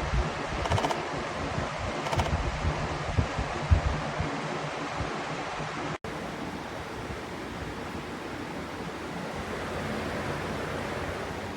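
Pelonis 20-inch four-blade box fan running: a steady rush of air, with gusts of its airflow buffeting the microphone. About six seconds in the sound cuts abruptly to a smoother, steadier rush.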